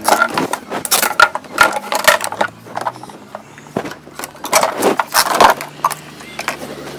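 Moulded plastic table parts knocking, clattering and scraping against each other and the tiled floor as they are pulled free of their strapping and moved. There are two bursts of sharp knocks, one at the start and one about four and a half seconds in.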